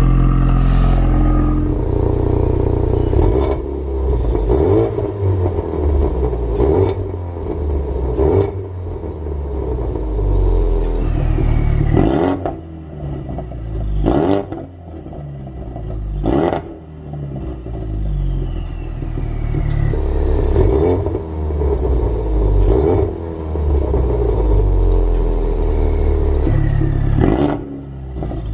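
Ford Focus RS Mk3 turbocharged four-cylinder idling on a cold start through a valved Scorpion cat-back exhaust. The note swings repeatedly between louder and quieter as the exhaust valve is opened and closed by remote; the closed valve makes the car much quieter.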